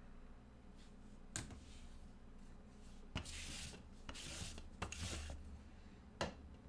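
Plastic trading-card holders and sleeves being handled on a table: a few light clicks and taps, with short rubbing, sliding sounds between them.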